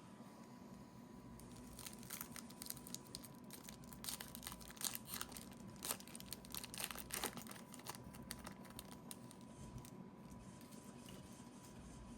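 A foil trading-card pack wrapper being torn open and crinkled by hand: a run of crackles that is loudest in the middle and dies away near the end.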